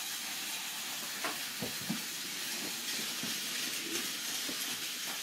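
Steady hiss with a few faint, scattered clicks and knocks of plastic toy train pieces being handled on a wooden floor.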